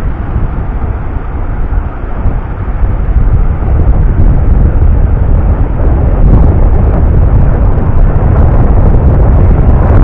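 Strong wind buffeting the microphone: a loud, gusty low rumble, growing louder from about four seconds in.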